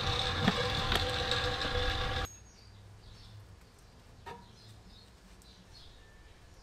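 Hand-tool clicks and clatter at the scooter's CVT cover bolts over a steady tone, cut off abruptly about two seconds in. Then quiet background with small birds chirping, and a single sharp knock about four seconds in.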